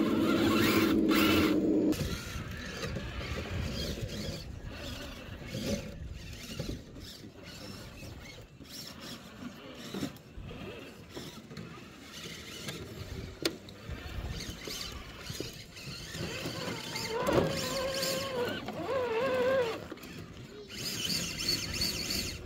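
Electric drive motor and gearbox of a radio-controlled scale rock crawler whining in short spurts as it creeps over rocks. A louder steady hum stops about two seconds in, and a wavering whine rises and falls near the end.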